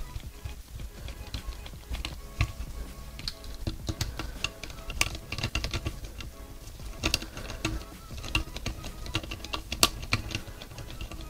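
Irregular light metallic clicks and taps of a hand driver and steel bolts as the crankcase bolts of a Vittorazi Moster paramotor engine are threaded in and snugged, with a few denser runs of clicks midway. Background music plays throughout.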